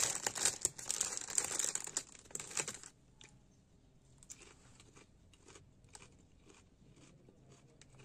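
Foil Lay's crisp bag being torn open and crinkled for about three seconds. Then quieter, scattered faint crunches of a potato crisp being chewed.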